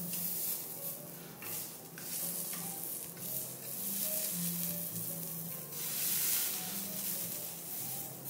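Vegetables sizzling on a hot teppanyaki steel griddle, the hiss swelling and falling in surges. A chef's knife and spatula scrape and tap on the steel plate as the pods are cut and pushed around.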